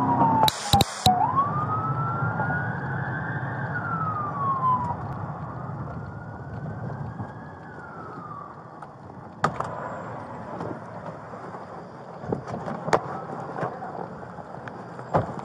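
Emergency siren wailing in slow rising and falling sweeps, heard from inside a moving police patrol car over steady road rumble; the wail fades after about nine seconds. A few sharp knocks follow, around nine and thirteen seconds in.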